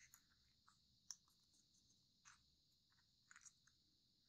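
Near silence, with a few faint, brief crinkles and clicks of kami origami paper being pinched and creased by fingers.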